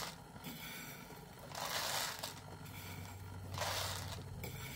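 Dry alphabet macaroni scooped off a plate and poured by hand into its cardboard box, rattling in short pours about every two seconds.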